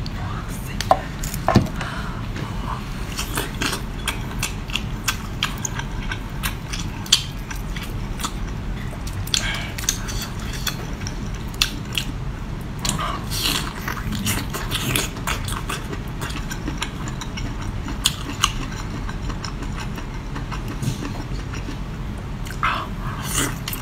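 Close-miked eating of spicy seafood: chewing with a run of small sharp clicks and crunches, over a steady low hum.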